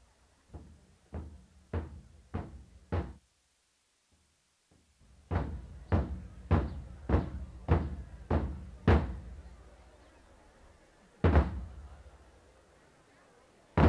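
Barrel-shaped taiko drums struck together with sticks at an even pace of about one stroke every 0.6 seconds: five softer strokes, a pause of about two seconds, then seven louder strokes, and a single heavy stroke near the end.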